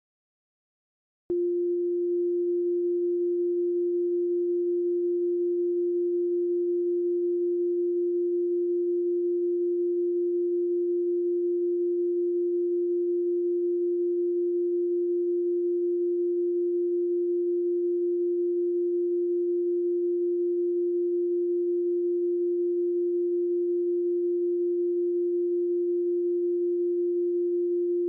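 Steady sine-wave test tone held at one unchanging pitch, starting abruptly about a second in after silence: the tone that goes with colour bars when a TV station is off the air.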